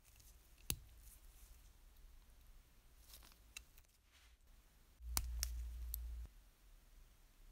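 Faint, sharp clicks of small metal toy-train parts being handled and pressed together with pliers: one click just under a second in, a few lighter ticks around three seconds, and a cluster of louder clicks over a brief low rumble a little after five seconds.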